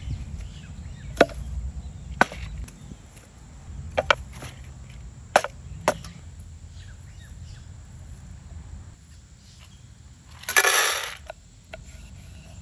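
Camp cookware being set out on a wooden board: about six sharp knocks and clicks of a metal pot, a steel tin and a knife put down on the wood. About ten seconds in, a louder, harsher noise lasting under a second.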